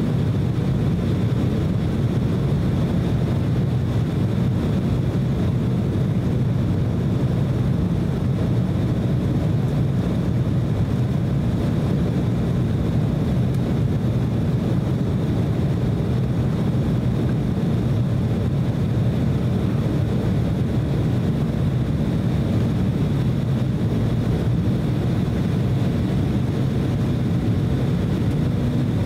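Steady cabin noise inside an Embraer E190 airliner descending on approach: the even low rush of airflow and its GE CF34 turbofan engines, with a faint high whine held steady throughout.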